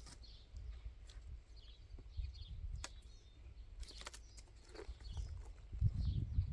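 Faint bird chirps in the background, with a few scattered light knocks. A low rumble grows louder near the end.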